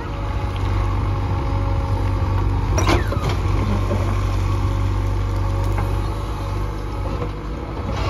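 JCB 3DX backhoe loader's diesel engine running steadily as the backhoe boom swings and dumps broken stone, with a sharp knock about three seconds in.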